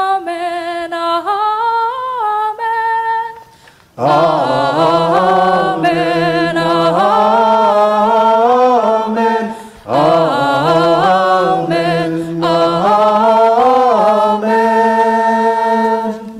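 Unaccompanied voices singing a liturgical Amen. A single voice carries the first phrase, and from about four seconds in lower voices join in harmony. After a brief break near ten seconds the singing ends on a held chord that cuts off.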